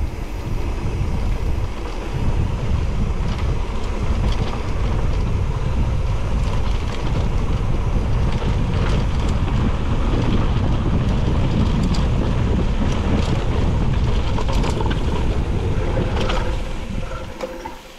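Wind buffeting the action camera's microphone, mixed with tyre and trail rumble, as a mountain bike is ridden along the trail, with a few light rattles; it dies down near the end.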